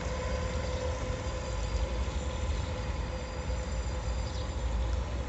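RC bait boat's electric propeller motors whining steadily over the water, the thin tone fading as the boat heads away, under a low rumble.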